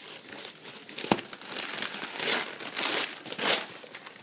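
Packaging crinkling and rustling as a parcel is unwrapped: a string of crinkles, the loudest a little past two seconds and about three and a half seconds in, with one sharp click about a second in.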